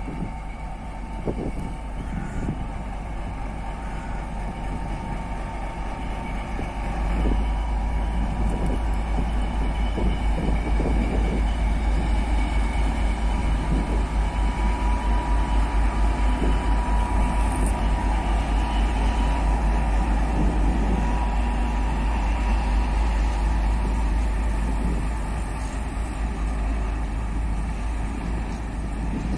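An ST44 (Soviet M62) diesel locomotive's two-stroke V12 engine working under load as it hauls a loaded freight train past, a deep pulsing rumble. It grows louder about seven seconds in as the locomotive draws near.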